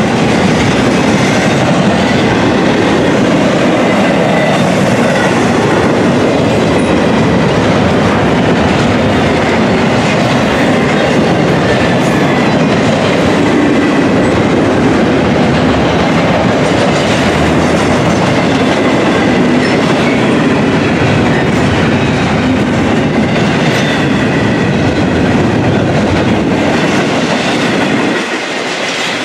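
Double-stack intermodal container train rolling past: a steady, loud rumble and clatter of well-car wheels on the rails, with the deepest rumble dropping away near the end.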